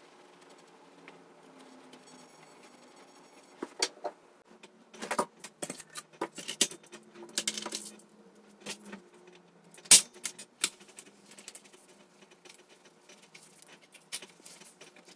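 Plastic parts of a GM full-size truck instrument cluster clicking and knocking as the circuit board is set into its housing and the gauge face is fitted. A quick run of sharp clicks and rattles starts about three and a half seconds in, and the loudest knock comes near ten seconds.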